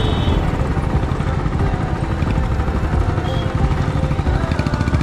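Motorcycle engine running on the move, under a steady, fluttering rumble of wind on the microphone.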